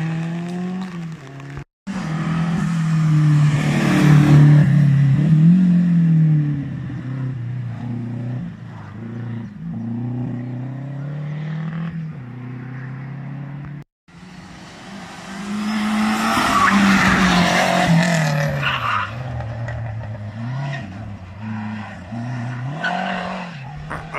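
Slalom race cars passing close, one after another, with the engine note climbing and dropping through throttle and gear changes and loud tyre noise on the tarmac. Each car is loudest as it goes by, about four seconds in and again about two-thirds of the way through. Two brief dropouts break up the sound.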